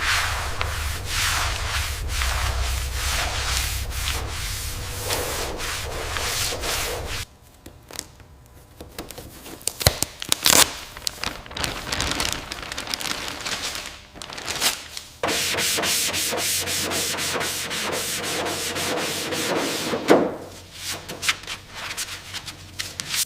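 Sanding on a car body during rust removal, as repeated rubbing strokes. The sanding stops for several seconds in the middle, where there are scattered sharp clicks and knocks, then starts again.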